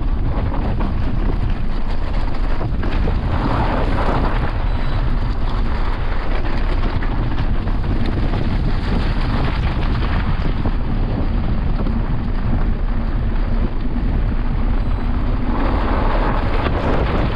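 Wind rushing over an action camera's microphone while a mountain bike rolls fast downhill over rough gravel and rock, its tyres rumbling and its frame rattling on the bumps.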